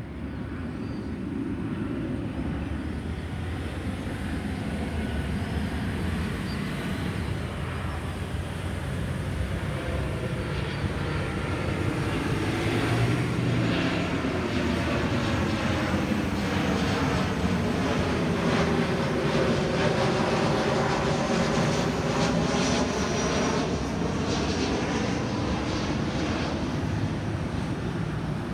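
Boeing 737-800 jet airliner on final approach, its turbofan engines heard as a steady roar that grows louder as it comes in, loudest about two-thirds of the way through. A phasing swoosh sweeps down and back up in pitch as it flies past.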